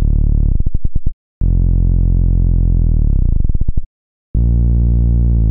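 Low sawtooth bass notes from the Serum software synthesizer, each held about two seconds and diving down in pitch as it ends: the pitch-bend drop of a progressive house saw bass.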